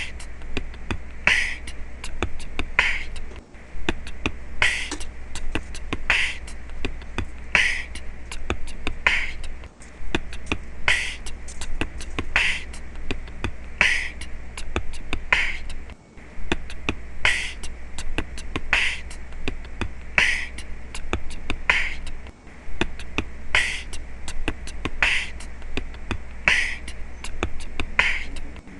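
Background music with a steady percussive beat: a sharp hit about every second and a half with lighter clicks between, the pattern looping every six seconds or so.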